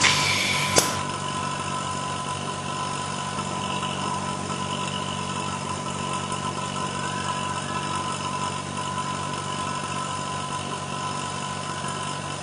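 Indutherm MC15 casting machine's vacuum pump running with a steady electric hum and a faint high whine, while the chamber is under vacuum. In about the first second a short loud hiss of air or gas cuts off with a sharp click.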